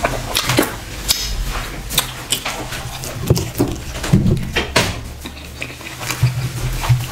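Close-miked wet chewing and mouth smacks from eating fufu dipped in ogbono soup by hand: irregular sharp clicks and sticky squelches, with a couple of short low hums near the middle and the end.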